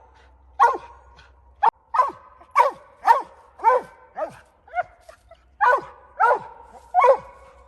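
Mountain cur giving a steady chop bark at the tree: about ten short barks, each dropping in pitch, roughly one every half second to second, with a brief pause about five seconds in. The barking marks the dog treed on a den tree where it has tracked a squirrel.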